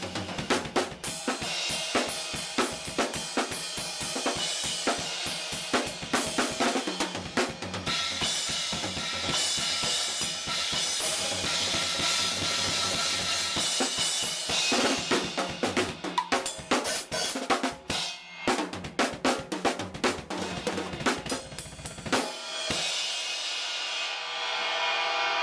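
Acoustic drum kit played in a busy pattern of kick, snare, hi-hat and cymbals, ending about 22 seconds in with a final crash cymbal that rings out.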